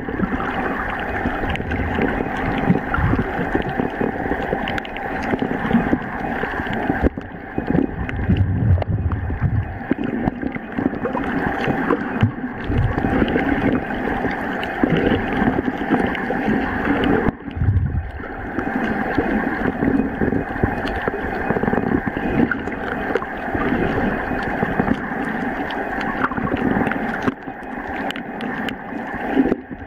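Muffled underwater sound picked up by a waterproof compact camera held under the surface: a steady rush and low rumble of water moving against the camera, with a faint steady hum.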